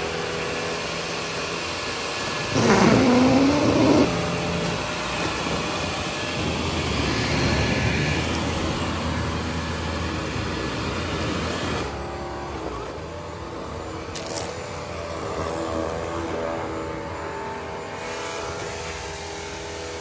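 Dyson 360 Vis Nav robot vacuum running, its suction fan and brush bar making a steady whirring noise as it drives over debris. About two and a half seconds in it gets louder for a second or so with a swooping whine, then settles back to a steady run.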